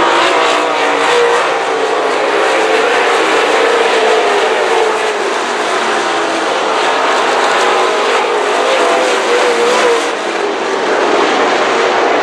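A pack of dirt late model race cars running hard around a clay oval, the V8 engines rising and falling in pitch as the cars lap.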